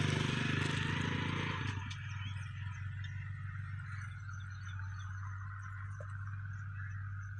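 An engine running close by for the first couple of seconds, then dropping away to a steady low hum. Under it, a faint even rush of irrigation water flowing along the furrows.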